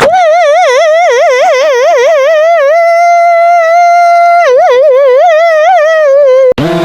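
Electronic siren wailing with a fast up-and-down warble, settling into a steady held tone for a second or two, warbling again and then sliding down in pitch. About half a second before the end it cuts off abruptly and a lower, horn-like tone starts.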